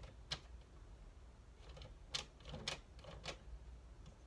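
A handful of sharp, irregular plastic clicks, about five, from a Nerf blaster's trigger and mechanism being worked by hand.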